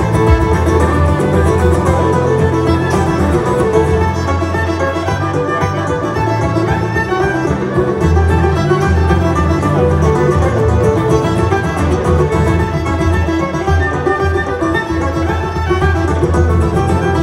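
Background music: an acoustic string-band tune led by a fiddle, running at a steady level.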